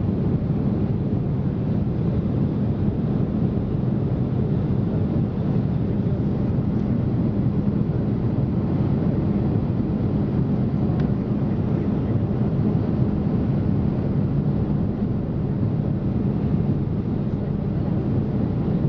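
Steady low drone of a Boeing 767 jet airliner in flight, with engine noise and airflow heard inside the passenger cabin. A faint steady hum runs through it.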